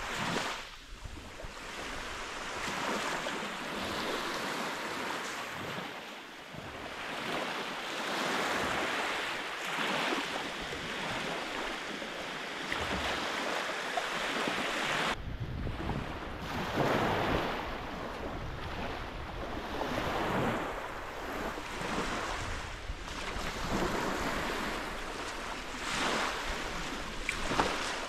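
Small Lake Superior waves washing up on a sand beach, the wash swelling and falling every few seconds. From about halfway through, wind rumbles on the microphone.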